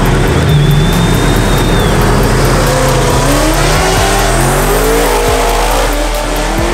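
Two drag-race cars, an old-school Chevrolet Nova and a Corvette, running at full throttle. Their engines rumble loudly at first, then from about two and a half seconds in rev up through several gear changes as the cars pull away.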